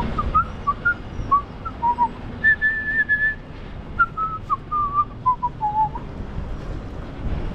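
A person whistling a short tune of a dozen or so notes that step up and down in pitch and stop about six seconds in, over a low, uneven rumble.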